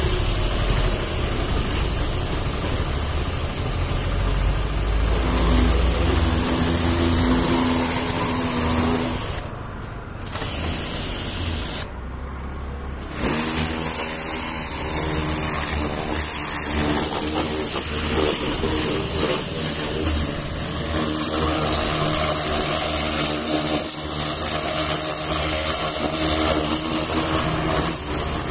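Pressure washer running, its water jet hissing against a car's side step and lower body panels over a steady machine hum. The spray cuts out twice briefly a little before the middle, then starts again.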